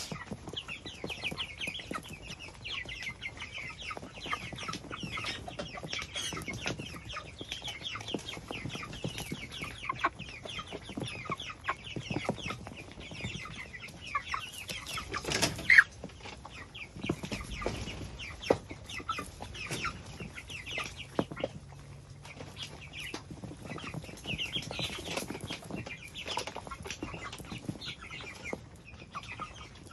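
A flock of white broiler chickens calling continuously, with many short high clucks and chirps overlapping. One sharp knock stands out a little past halfway.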